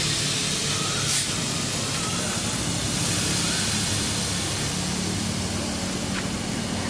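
Egg dish sizzling steadily on a hot pan, an even frying hiss over a low steady hum, with one sharp click about a second in.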